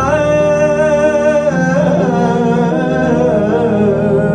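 Arabic pop song: a male singer holds a long, wavering, ornamented note over sustained instrumental backing.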